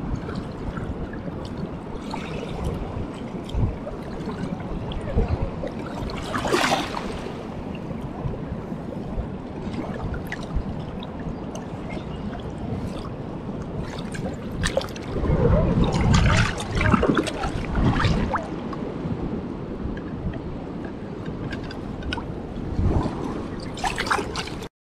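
Shallow river water sloshing and gurgling around a landing net held in the current, with an American shad splashing in the net. The splashing is loudest about two-thirds of the way through and again just before the end.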